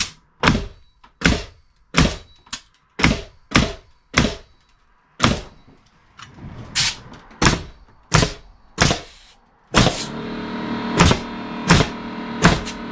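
Pneumatic framing nailer driving nails through a board collar tie into the rafters, about seventeen sharp shots at an uneven pace, some half a second apart. About ten seconds in a steady motor hum starts and runs under the last shots.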